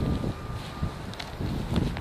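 Wind buffeting the microphone in uneven low rumbling gusts, with a few short clicks.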